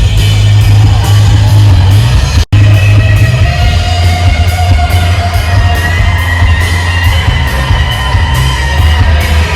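Loud rock music with a heavy bass line and a voice singing. It drops out for a split second about two and a half seconds in.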